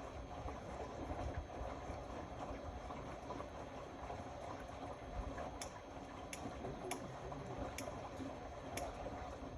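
Indesit Innex BWE 91496X washing machine running a wash, water and laundry sloshing in the turning drum, with a series of light sharp clicks in the second half.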